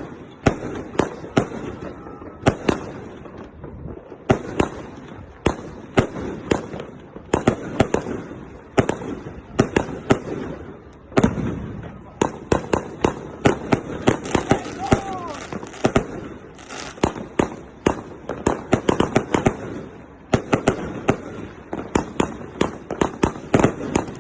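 Firework compound (a linked set of cakes) firing: volley after volley of sharp bangs, fired in quick clusters of several shots about every second with brief gaps between.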